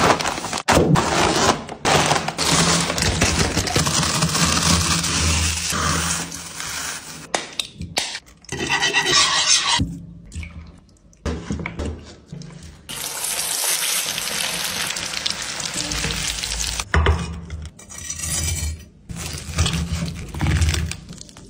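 Food-preparation sounds over background music: a knife slitting a crisp packet, liquid pouring into a pan of spiced chicken, and a knife cutting through crisp-coated fried chicken near the end.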